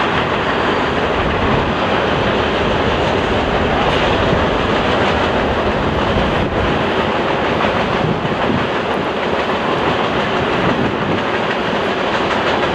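Freight cars of a passing train rolling by steadily, the wheels running on the rails with an even rolling noise and no horn.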